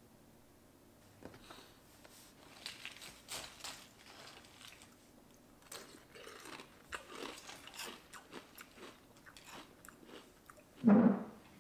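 A person chewing a crunchy breakfast food, with irregular bouts of crunching. Near the end there is one brief, louder low sound.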